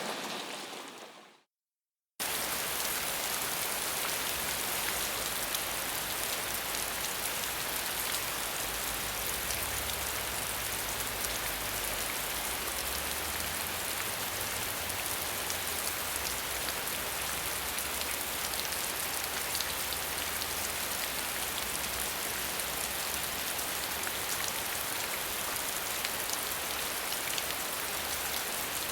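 Steady rain falling, a dense hiss with fine pattering of drops. Just over a second in it fades out to a brief silence, then starts again abruptly and runs on evenly.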